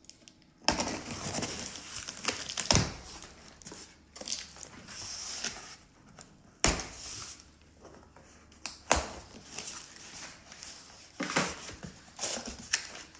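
Pressure-washer packaging being opened and handled by hand: irregular crinkling and rustling broken by several sudden rips or knocks.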